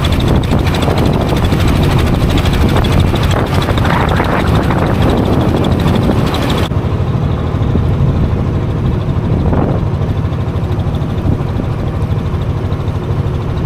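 Tour boat's engine running steadily and loud, close by, with a low, even pitch. Wind and water hiss ride over it until about seven seconds in, when they drop away suddenly while the engine carries on.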